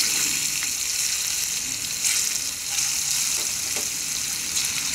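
Pieces of rainbow trout sizzling in hot cooking oil in a small non-stick frying pan as they are added one after another: a steady high hiss with a few faint crackles.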